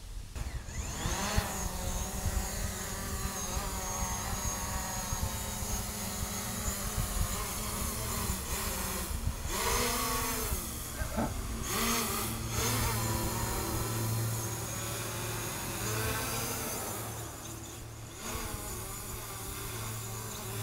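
Small quadcopter drone's propellers whining as the motors spin up with a rising pitch about a second in and it lifts off, then hovering and manoeuvring with the whine shifting up and down in pitch.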